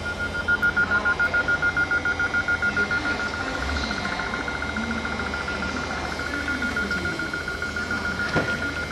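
Door-closing warning of a Régiolis train: a rapid, steady beeping at one high pitch sounding as the sliding passenger doors close. A single knock near the end.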